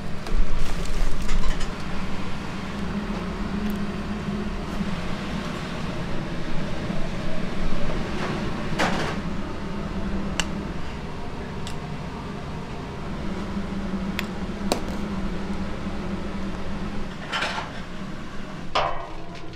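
Restaurant kitchen work: scattered clinks and knocks of dishes, pots and utensils, with a couple of short scrapes, over a steady low hum.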